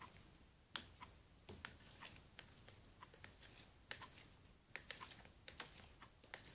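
Plastic spoon stirring a foamy glue-and-soap slime mixture in a plastic cup: faint, irregular clicks and taps of the spoon against the cup.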